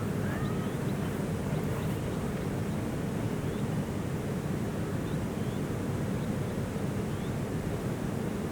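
Steady low rumbling background noise, even in level, with a few faint short high chirps scattered through it.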